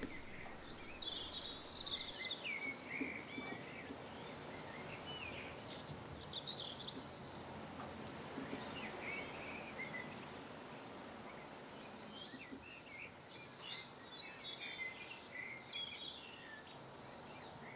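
Birds chirping in the background: short, scattered calls over a quiet, steady hiss.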